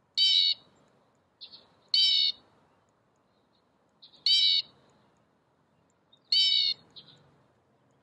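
Recorded blue jay calls played from the small speaker of an electronic bird-song book: four harsh squawks, each under half a second and about two seconds apart, with fainter short notes between them.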